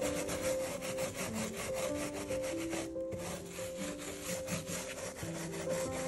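Stiff grout brush scrubbing a glass mosaic in quick back-and-forth strokes, working dried grout haze out of textured glass and around raised pieces. Soft background music with held notes plays under it.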